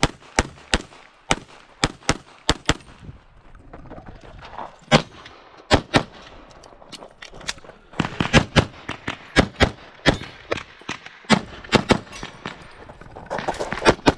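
Semi-automatic pistol firing in rapid pairs of shots at targets, the pairs separated by pauses of a second or two while the shooter moves between positions during a timed IPSC stage.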